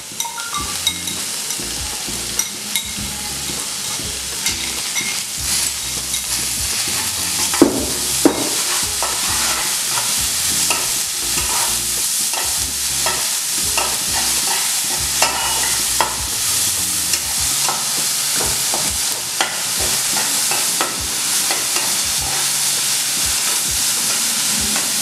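Chopped onions sizzling in hot ghee, stirred with a spatula that scrapes and clicks against the pan, with two sharper knocks about eight seconds in. The onions are being sautéed on high heat until light golden brown.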